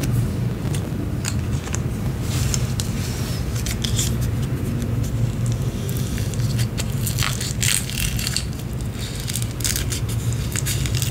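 Light clicks, scrapes and crackles of a Kinder Joy's plastic tray being handled and one of its cocoa wafer balls being broken apart, over a steady low hum.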